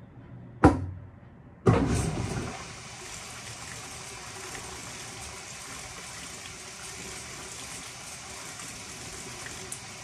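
Panasonic top-loading washing machine: a single sharp click, then about a second later water starts gushing into the tub. The gush is loud at first and settles within a second or so into a steady hiss of water pouring onto the turning drum.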